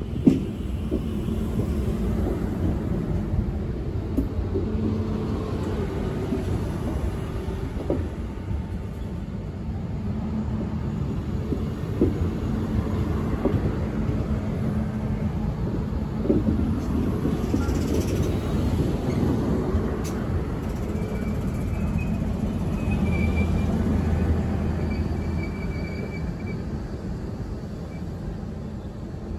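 SNCF Z 23500 (TER 2N) double-deck electric multiple unit running past along the platform, a steady rumble of wheels on rail with a few sharp clicks. Faint high wheel squeals come toward the end as the last car goes by.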